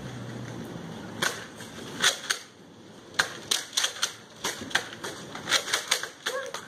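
Toy foam-dart blasters clicking as they are cocked and fired: a quick, irregular series of sharp clicks and snaps, coming thicker in the second half.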